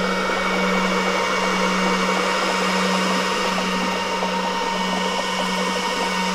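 Power supply of a four-cell PEM hydrogen electrolysis generator running with a steady hum and hiss, with faint irregular ticking from oxygen bubbling up through the water reservoir.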